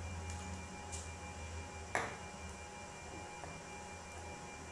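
Steady electrical hum with thin, steady high tones over it, and one sharp click about two seconds in as hands handle the lavalier microphone's cable and connectors.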